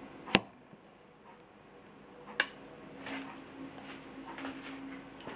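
Two sharp clicks about two seconds apart, the second with a short scratchy tail, over a faint steady hum: small objects being handled and set down on a table.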